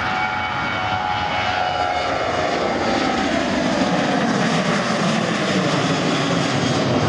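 Boeing 737-700's CFM56-7B jet engines at takeoff thrust as the airliner lifts off and climbs past. The engine whine slides down in pitch over the first few seconds, and a low rumble grows stronger in the second half.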